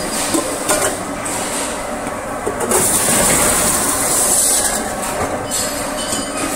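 Teapot-body bottom-expanding machine running, with aluminum pot bodies pressed onto its spinning forming heads to stretch out their bottoms. The sound is a steady mechanical noise with scattered clicks and a high hiss.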